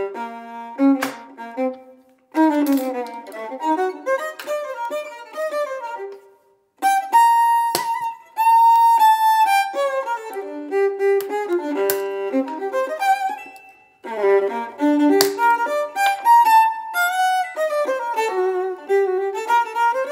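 Background music: a melodic instrumental tune, pausing briefly three times.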